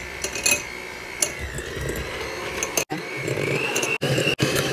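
Electric hand mixer running, its beaters creaming softened butter and sugar in a glass bowl: a steady motor whine that rises in pitch about halfway through and breaks off briefly a few times.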